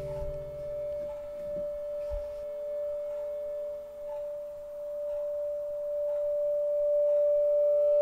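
Eerie film-score drone: one steady, pure high tone held throughout, with a lower tone beneath it that fades out about halfway and comes back near the end, growing louder toward the end.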